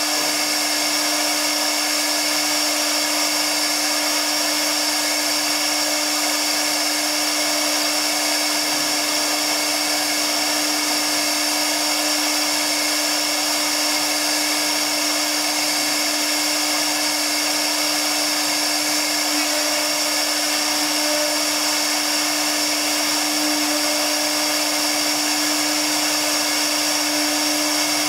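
Tiptopcnc 1325 CNC router spindle spinning at high speed, its V-shaped engraving bit cutting into MDF board. A steady high whine over a lower hum.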